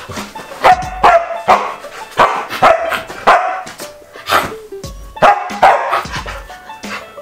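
Samoyed barking at close range, about a dozen short loud barks in quick, uneven succession.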